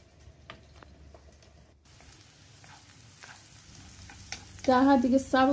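Diced onions frying quietly in hot oil in a frying pan, stirred with a wooden spatula, with a few light scrapes and taps of the spatula; the sizzle grows slightly louder after about two seconds.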